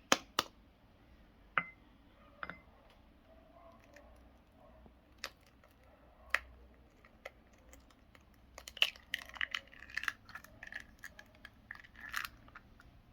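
Scattered light clicks and knocks of kitchen objects being handled, with a denser run of small taps and clicks from about eight and a half to twelve and a half seconds in, over a faint low hum.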